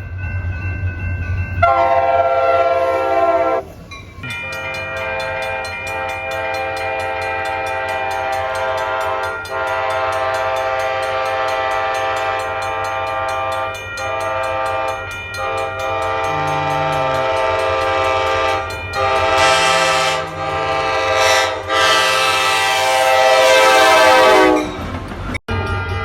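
Diesel commuter locomotive's multi-chime air horn: a short blast, then a long chord held for about twenty seconds with a few brief breaks. It is loudest near the end, where the whole chord slides down in pitch, under a steady low hum.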